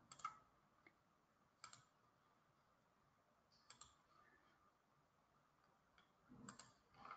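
Near silence with about five faint, separate clicks spread through it: a computer mouse being clicked.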